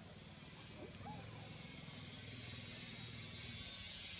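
Outdoor background noise: a steady high hiss that grows louder, over a low steady hum, with a few faint short calls.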